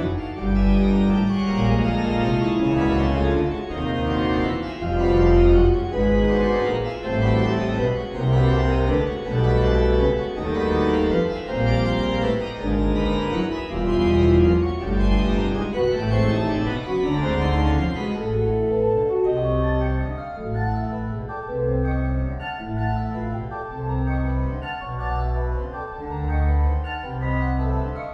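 MIDI-rendered pipe organ playing a modern piece: dense, jagged chords in the manuals over short, detached pedal bass notes, the pedal carrying the line written for trombone. About two-thirds of the way through the bright upper sound drops away and the texture thins.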